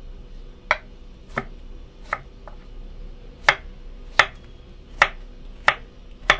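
Kitchen knife chopping chayote on a plastic cutting board: about eight crisp chops, roughly one every 0.7 s, each a sharp knock of the blade on the board.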